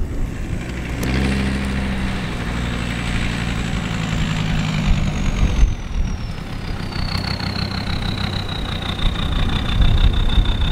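Land Rover Defender 110's engine running at low revs as it crawls up a soft sand track. A high whine slides down in pitch about halfway through, then holds steady.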